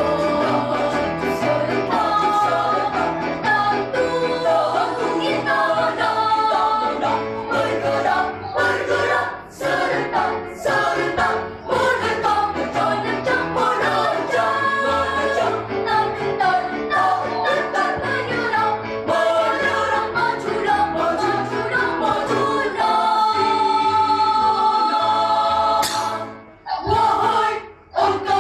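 A children's school choir singing a song in several voice parts, breaking off briefly near the end.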